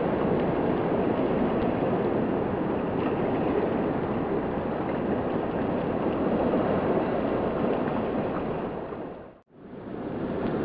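Steady rushing background noise of the seashore, with no distinct events in it. It dips briefly to silence about nine seconds in, then returns.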